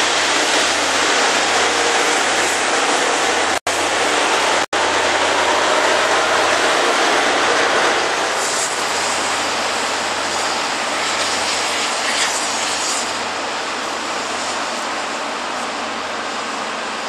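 Loram rail grinder train grinding the rails: a loud, steady grinding hiss from the rotating grinding stones on the railhead, mixed with the train's running noise. The sound cuts out briefly twice, about three and a half and four and a half seconds in, and eases slightly about eight seconds in.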